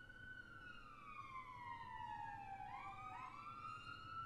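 Faint emergency-vehicle sirens wailing, their pitch slowly rising and falling, with another siren cycle overlapping the first about three seconds in.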